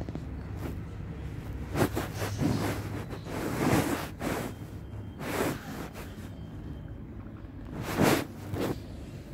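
Rustling and handling noise in about six short bursts, as the phone and a hand brush over a cloth bedspread, over a steady low background hum.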